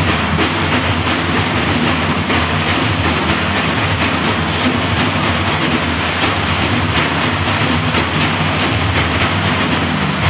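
A large ensemble of frame drums played together, a loud, continuous, dense rhythm of drum strokes.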